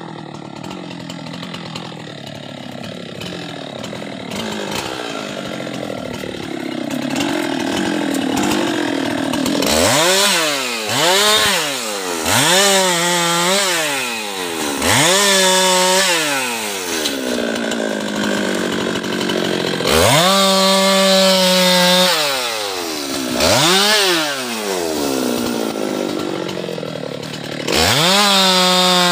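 Husqvarna two-stroke chainsaw idling, then revved again and again from about ten seconds in: a few short throttle blips and four longer stretches held at full speed for a second or two, each falling back to idle, as the chain cuts through guava wood.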